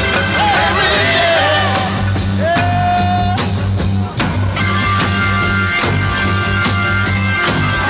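Loud rock background music with a steady beat, drums and guitar, and a sung or lead melody line in the first half.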